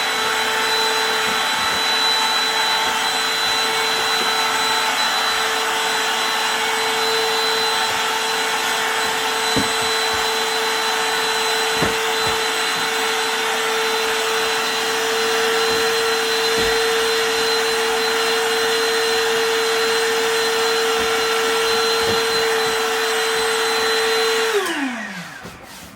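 Electric air pump inflating a Bestway air mattress: a steady motor hum over a rush of air. About a second and a half before the end it is switched off and its pitch falls as the motor winds down, the mattress now pumped up firm.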